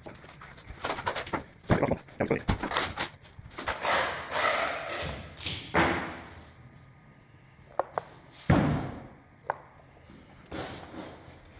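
Workshop handling noise at a workbench: a run of knocks, clatters and short scuffs, with a heavier thud about eight and a half seconds in and a few sharp clicks near the end.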